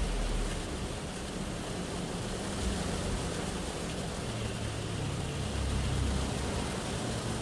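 Shower rain falling on a car's roof and windows, heard from inside the cabin as a steady, even hiss. Traffic on the road outside adds a low rumble that swells about five to six seconds in.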